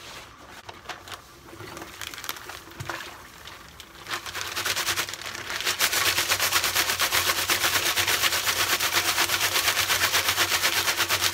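Sugar poured from a plastic bag into a plastic fermenting barrel: bag crinkling and scattered clicks, building about four seconds in into a rapid, even rattle.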